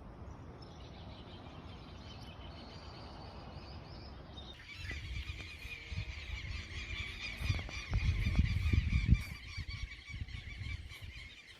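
A faint noisy hiss, then from about four and a half seconds in a steady chorus of bird calls, with low rumbling that swells about eight seconds in.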